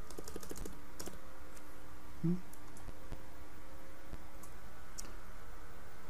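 Computer keyboard keys pressed while editing text spacing: a quick run of key clicks in the first second, then a few scattered taps, over a steady background hum. A short low thump about two seconds in.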